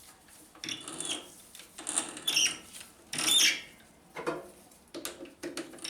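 Hand tap cutting an inside thread in a piece of brass, turned in short strokes: a series of scraping, squeaking bursts of metal on metal, the loudest two about two and three seconds in.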